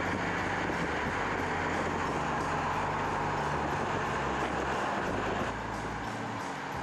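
Car driving at speed on a track: a steady engine drone with heavy road and wind noise, the level easing slightly near the end.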